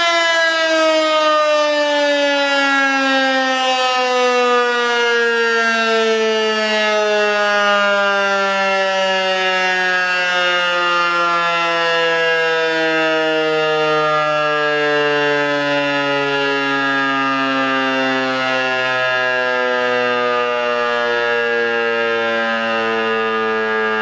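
Roof-mounted, mushroom-topped electro-mechanical fire siren winding down after sounding the fire brigade alarm. It keeps one continuous loud tone whose pitch falls slowly and steadily as the rotor coasts to a stop.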